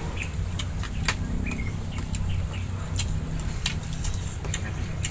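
A steady low hum, with scattered small clicks and taps from food and utensils being handled during a meal, and a few short high chirps.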